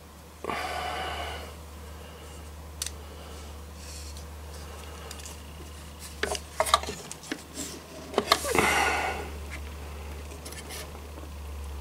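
Digital caliper sliding along its beam, scraping about half a second in and again at about eight seconds, with light clicks and taps between as it is set against a metal chassis plate. A steady low hum lies underneath.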